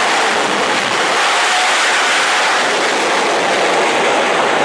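Shockwave jet truck's jet engines running at full thrust on afterburner, a loud steady roar of jet blast.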